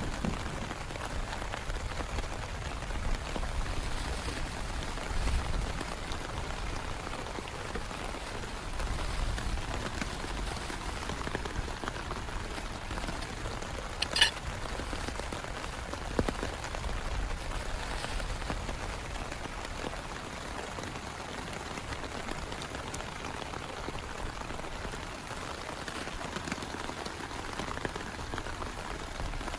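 Heavy rain falling steadily, with one sharp tap about halfway through.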